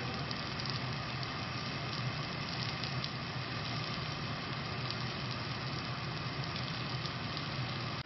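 Thin slices of beef sizzling on a round lava stone plate over a gas burner: a steady frying hiss with a few faint crackles. The plate is now hot enough to sear the meat.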